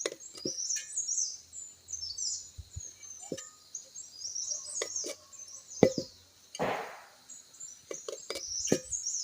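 Small birds chirping and twittering without a break, with scattered light clicks and knocks and a brief rustle about seven seconds in.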